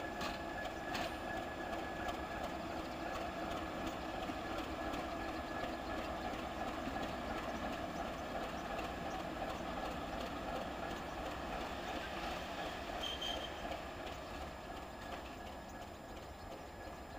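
Class 751 diesel locomotive's six-cylinder engine running steadily as the locomotive rolls past hauling a tank wagon. There is a brief high squeak about thirteen seconds in, and the sound fades a little near the end.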